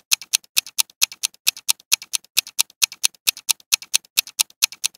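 Countdown ticking sound effect, like a fast clock: sharp, even ticks at about four to five a second, timing the seconds left to pick an answer.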